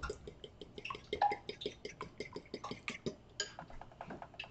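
A fork beating an egg in a white ceramic bowl, the tines clicking against the bowl about six times a second, with one sharper clink a little after three seconds in.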